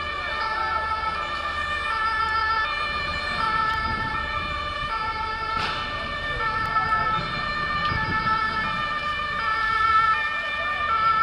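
Two-tone siren sounding on and on, its pitch stepping back and forth between two notes. Small warbling whistles sound over it, and there is a single sharp bang about halfway through.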